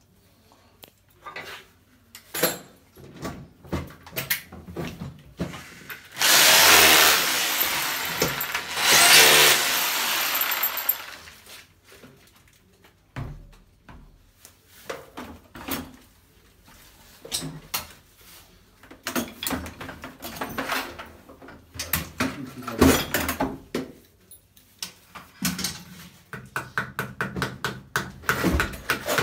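Power drill boring into the wall in two runs, about six and nine seconds in, each lasting a couple of seconds. Scattered knocks and clicks of handling follow, then a quick run of hammer blows near the end.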